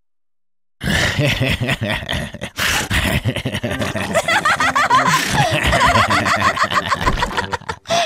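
Cartoon pig family laughing together, several voices giggling and snorting at once, starting about a second in after a short silence.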